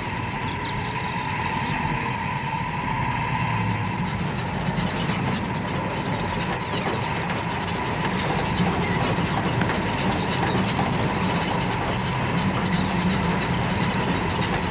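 Small 1922-built steam tank locomotive running on the track: a steady low rumble with a hiss of steam and fine ticking over it.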